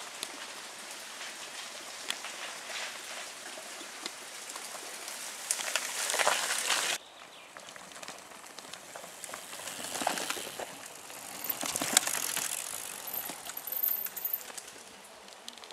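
Mountain bikes riding past on a dirt forest trail: tyres crackling over soil and twigs, swelling as each rider goes by, several passes in all. The sound drops suddenly about seven seconds in.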